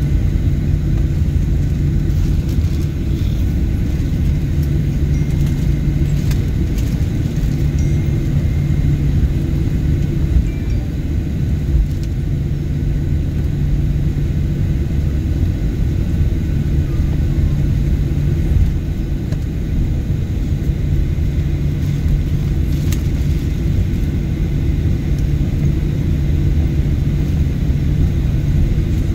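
Cabin noise of a Boeing airliner taxiing after landing: the jet engines at taxi idle give a steady rumble, with a low hum that fades in and out every few seconds.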